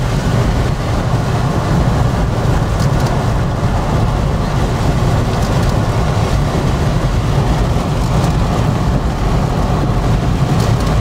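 Steady, low wind and road noise inside a vehicle cabin, with rain on the windshield and a few faint raindrop ticks.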